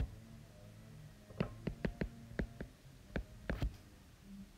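A stylus tapping on a tablet's glass screen while handwriting: about nine short, sharp clicks in a quick, uneven run from about a second and a half in, over a faint steady low hum.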